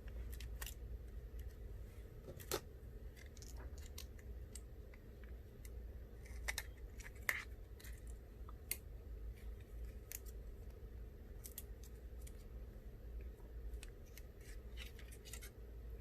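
Faint, irregular small clicks and light metallic ticks as tiny screws and metal parts of an iPhone 6s Plus are handled with a precision screwdriver and tweezers, over a low steady hum.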